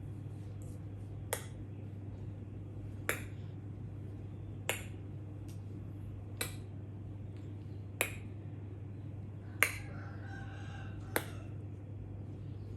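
Seven sharp snapping clicks made by a person, evenly spaced about every second and a half, to catch a baby's attention. A short pitched call sounds between the last two clicks, over a steady low hum.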